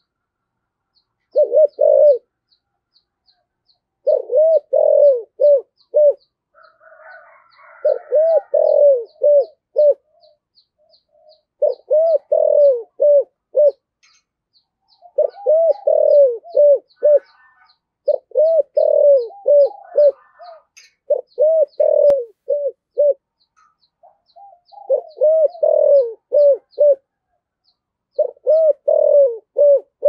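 Caged spotted dove cooing in the deep 'giọng thổ' voice, a decoy bird's call to draw in wild doves: about nine phrases of four or five coo notes, one every three to four seconds. Faint chirping of small birds and faint high ticking sit between the phrases.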